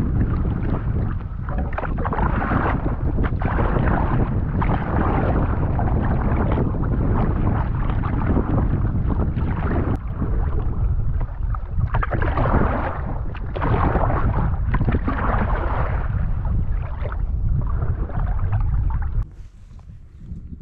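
Canoe paddling in strong wind. Wind buffets the microphone with a heavy rumble, and water splashes in swells every second or two. The wind noise drops away suddenly near the end.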